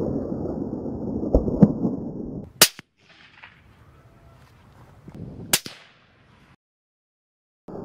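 A loud low noise, then two sharp rifle shots about three seconds apart, the second followed by a short tail.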